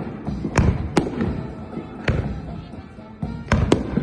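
Fireworks salute shells bursting overhead: several sharp bangs, two in quick succession near the end, each followed by a rumbling echo.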